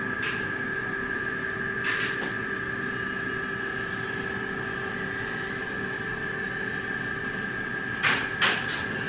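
Southern passenger elevator: a steady hum with a high whine, a couple of clicks in the first two seconds, and two sharp clunks about a second before the end, typical of the doors and door operator working.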